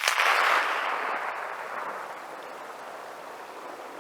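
Rolling echo of a Svemko-suppressed rifle shot coming back from the terrain. It sets in suddenly and fades away over about three seconds.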